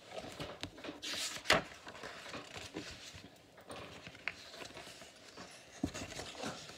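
Pages of a picture book being turned and handled: paper rustling and flapping, loudest about a second and a half in, with small taps and rubs of hands on the book.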